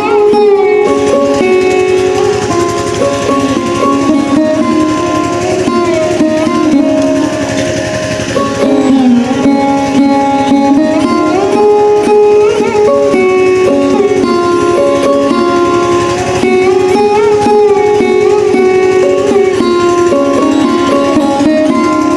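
Background music led by a plucked string instrument in a sitar-like style, playing a steady melody.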